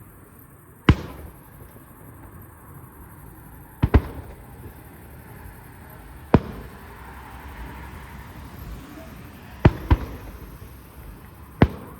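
Aerial firework shells bursting overhead: seven sharp bangs, spaced two to three seconds apart, two of them in quick pairs.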